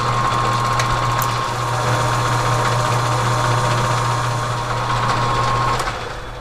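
Metal lathe running, its cutter taking a light finishing pass on a heat-treated 4140 steel part: a steady low hum with a thin high whine. Near the end the whine stops and the sound dies down as the machine winds down.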